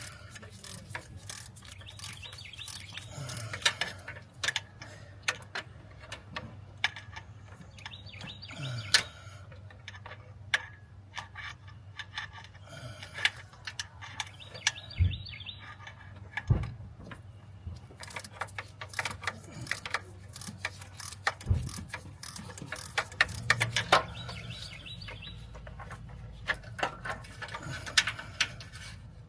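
Irregular clicks, taps and knocks of hand tools working on metal under the hood, with a few duller thuds along the way, over a steady low hum.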